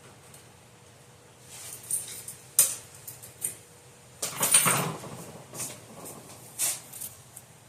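Scattered clicks and knocks of a fire alarm pull station being handled and fitted during installation, with a louder scraping rustle lasting under a second about four seconds in.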